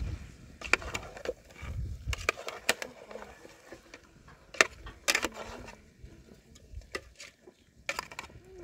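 Cookware and utensils knocking and clinking irregularly, about a dozen sharp strikes, the loudest about four and a half seconds in.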